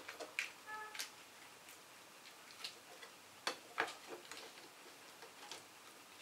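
Faint, scattered clicks and crackles of cooked lobster shell being handled as the meat is pulled out of the split tail, with two sharper clicks about three and a half seconds in.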